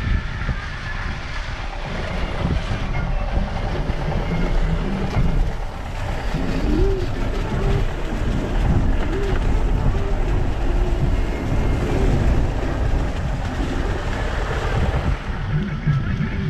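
Vehicle cabin noise on a mountain road: a steady low rumble of engine and road, with wind buffeting the microphone.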